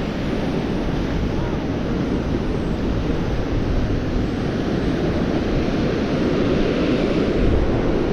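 Strong gusting wind buffeting the microphone, a steady low rumble that swells slightly in the second half, with beach surf underneath.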